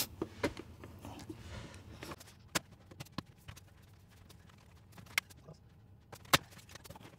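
Scattered sharp plastic clicks and knocks as interior trim panels are pried and pulled off a Tesla Model 3/Y dashboard, their retaining clips letting go. There are about eight separate clicks, the loudest one about six seconds in.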